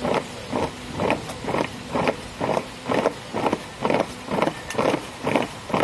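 A column of soldiers marching in step on an asphalt road, their boots striking together in a regular beat about twice a second.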